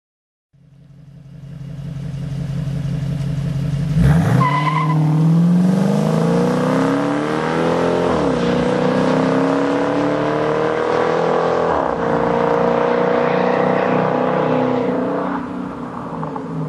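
Dodge Challenger R/T's 5.7-litre HEMI V8 through a Zoomers aftermarket exhaust accelerating hard: the engine note climbs, drops sharply at an upshift about halfway through, climbs again and drops at a second upshift, then holds and eases off near the end.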